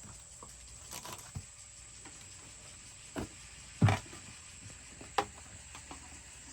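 Scattered knocks and clicks of plastic parts being handled and worked into a plastic bucket while fitting a feeder port, the loudest a thump about four seconds in and a sharp tap a second later.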